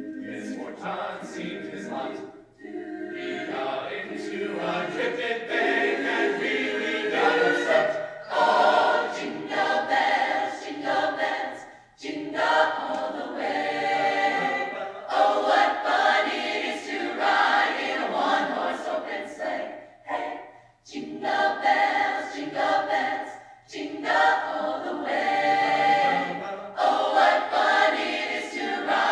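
A choir singing, possibly a cappella, in phrases that break off for short pauses a few times.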